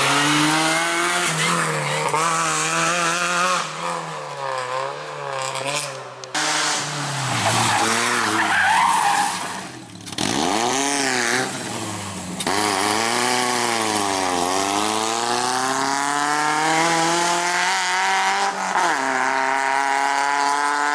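Peugeot 205 and 206 rally cars driven hard through bends one after another. Their engines rev up through the gears, and the engine note drops sharply and climbs again several times as they brake for corners and accelerate out.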